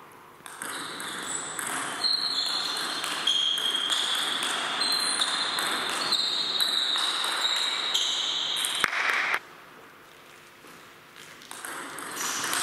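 Table tennis rally: the ball clicking back and forth off the bats and the table in a large sports hall for about nine seconds, with a sharp hit just before the point ends. After a short lull, the next rally starts near the end.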